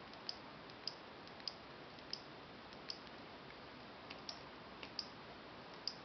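Button clicks of a gStick pen-shaped computer mouse: about eight short, sharp clicks at a steady pace of roughly one every two-thirds of a second, each click telling the paint program to place a flower. A faint steady hiss lies underneath.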